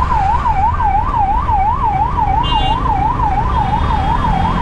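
Ambulance siren wailing in a fast, even up-and-down yelp, about two and a half sweeps a second, over the low rumble of slow traffic. A short high-pitched beep cuts in about halfway through.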